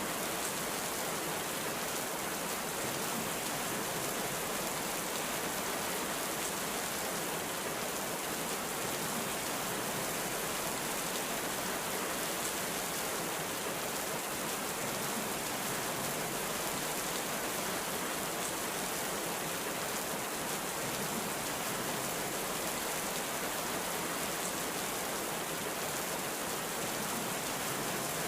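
Heavy rain falling steadily, a dense even hiss with no breaks or changes.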